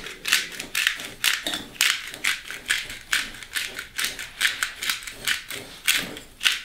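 Hand pepper mill grinding peppercorns, twisted in short repeated turns: a gritty rasp about three times a second.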